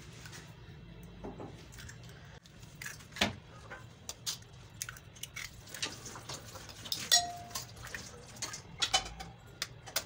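Eggs being cracked with a knife blade over a glass bowl: scattered sharp taps and clinks of steel on eggshell and glass, one giving a short ring about seven seconds in.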